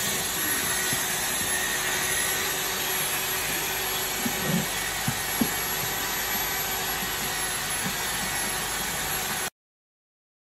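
Gypsum plaster sprayer machine running steadily with a loud, even hiss, and a few dull thumps about four and a half to five and a half seconds in. The sound cuts off abruptly near the end.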